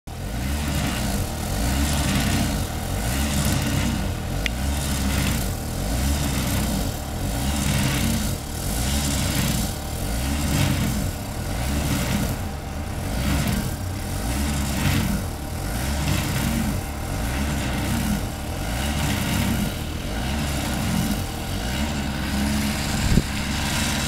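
Snowblower engine running steadily under load while it cuts through deep snow, with a rushing hiss that swells and fades every second or so.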